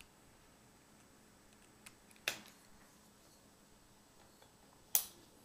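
Two sharp plastic clicks about two and a half seconds apart, with a faint tick just before the first: RJ45 Ethernet plugs and a PoE adapter being handled and clicked into their jacks.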